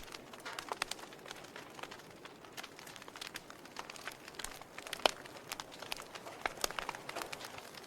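Wood fire burning in a fireplace: a soft hiss of flames with irregular crackles and pops, the loudest pop about five seconds in.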